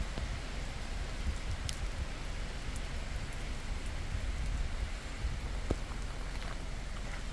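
Steady rain falling on a lake and the surrounding trees and gravel, with a few sharper ticks of drops hitting close by and a low rumble underneath.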